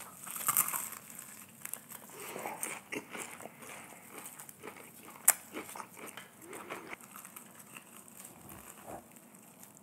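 Close-miked chewing and crunching of crispy KFC fried chicken and a chicken sandwich, with soft crackles and scattered sharp clicks, the sharpest about five seconds in.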